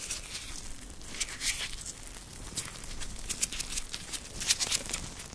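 White rubber gloves rubbed and flexed close to the microphone: an irregular run of short rubbing, crinkling and squeaky strokes, busier toward the end.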